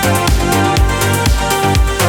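Background music with a steady kick-drum beat, about two beats a second, in an electronic dance style.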